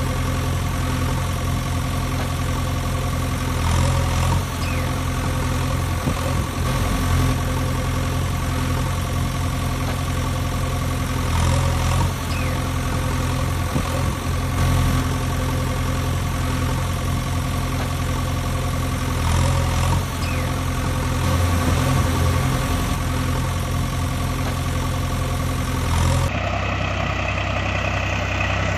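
Steady engine idling sound, repeating in a loop about every eight seconds. Near the end it cuts abruptly to a different engine idle.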